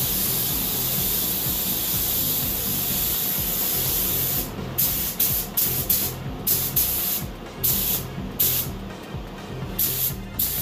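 Gravity-feed paint spray gun hissing as it atomises paint with compressed air: one steady spray pass, then short trigger bursts from about four and a half seconds in.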